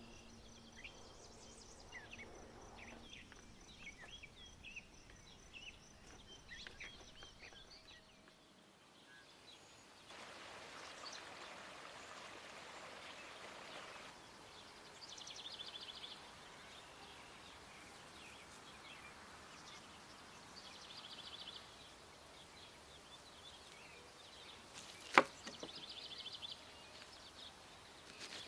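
Outdoor rural background of birds chirping and insects trilling in short repeated bursts, over a low hiss. Near the end there is one sharp knock, the loudest sound here.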